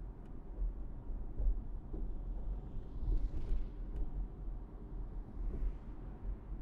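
Low, steady rumble of road and traffic noise from a car driving through city streets, with a brief hissing swell about three seconds in and another near the end.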